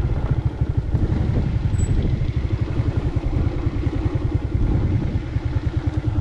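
A small engine running steadily at an even speed, with a fast low throb.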